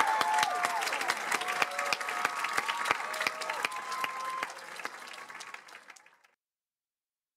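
Audience applauding, with a few whoops in the first seconds, fading out about six seconds in.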